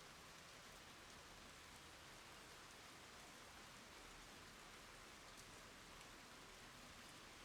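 Rain falling: a faint, steady hiss with a few separate drop ticks scattered through it.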